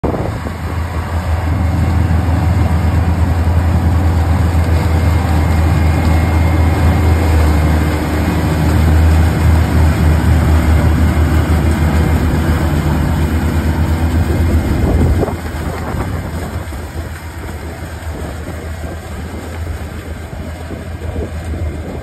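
350 hp OXBO 8430 sweet corn harvester working through the corn: a steady low engine drone over the broad noise of its harvesting machinery. It gets noticeably quieter about fifteen seconds in.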